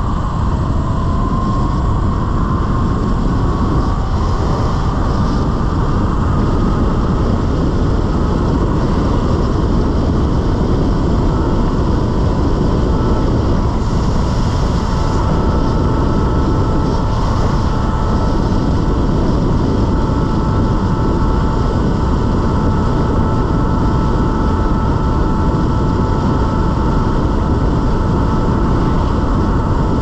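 Talaria Sting electric dirt bike's motor whining while riding, rising in pitch over the first few seconds as it speeds up and then holding steady, under a loud, steady rush of wind.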